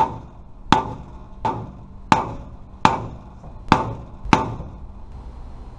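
Hammer striking the end of a wooden stick braced against the back of a dented chrome truck bumper, driving the dent back out from behind. Seven knocks about one every 0.7 s, each with a short metallic ring, stopping about 4.5 seconds in.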